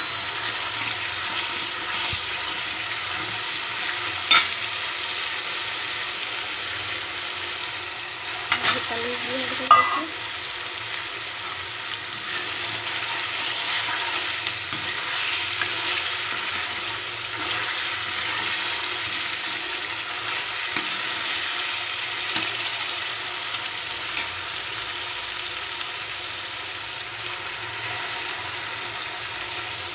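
Thick masala gravy with peas and paneer sizzling in a metal kadai while a metal spatula stirs it. A few sharp clinks of the spatula on the pan, the loudest about four seconds in and around nine to ten seconds in.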